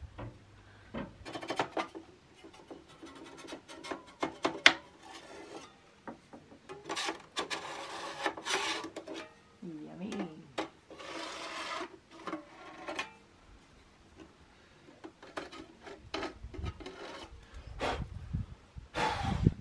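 Wide-bladed hand scraper scraping along the wood of an old window frame in short, uneven strokes.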